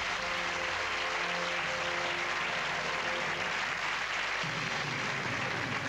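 Studio audience applauding over the quiz show's music sting for a correct answer: a few held synth notes, with a lower note joining near the end.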